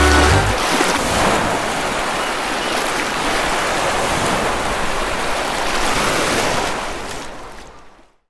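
Sea surf washing over shoreline rocks, a steady rush with slow swells that fades out near the end. The tail of background music cuts off about half a second in.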